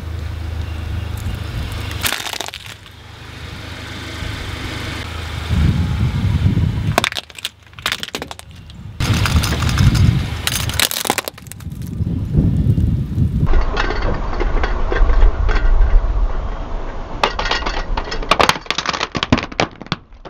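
A car rolls slowly over dry dirt and crushes objects under its tyres, with several bouts of sharp cracking and crunching over the low sound of the running car.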